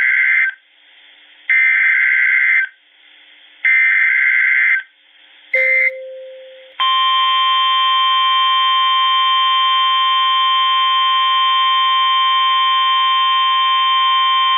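Emergency Alert System broadcast tones: the SAME data header screeches out as three bursts of about a second each, with a second's gap between them. After a brief click, the long steady EAS attention tone sounds for about nine seconds. This signals the start of a new warning.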